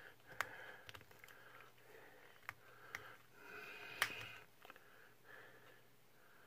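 Plastic press-and-turn child-resistant cap on a small bottle clicking as it is twisted without coming open: five or so sharp clicks, the loudest about four seconds in. Sniffs and breathing through the nose run between the clicks.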